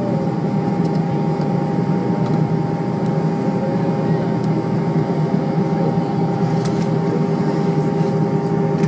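Airbus A320 cabin noise heard from a window seat over the wing while taxiing: the jet engines run steadily at low taxi power, a constant hum with a few steady whining tones.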